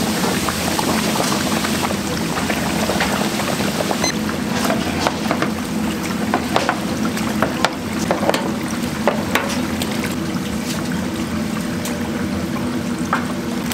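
Food sizzling as it cooks, with scattered sharp crackles over a steady hum.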